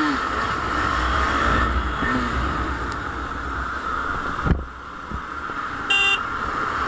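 KTM Duke 250's single-cylinder engine running under way, with wind rushing over the camera. A short knock about four and a half seconds in, after which the sound drops for about a second, and a brief horn beep near the end.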